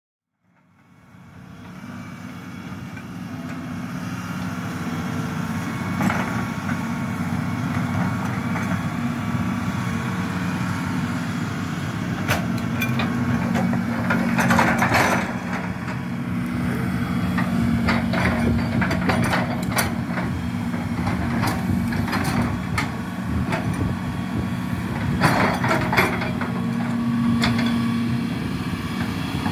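Excavator's diesel engine running steadily under load, with scattered knocks and cracks and two louder rasping stretches, about halfway and near the end, as it works through timber in the river.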